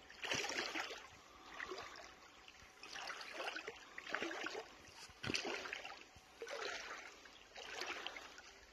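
A person wading through shallow water, a sloshing swish with each step, about seven steps at roughly one a second.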